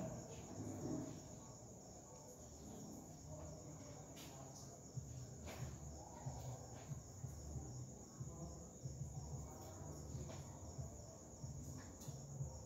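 Faint background sound: a steady high-pitched whine or trill over a low, uneven rumble, with a few soft clicks scattered through.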